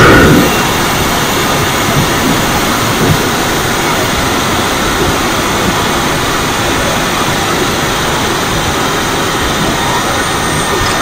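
Steady rushing noise from a 2016 Audi S4 on the move, recorded from under the engine. Its supercharged 3.0-litre V6 and aftermarket intake blend with road noise at a steady speed. The level drops a step about half a second in and then holds even.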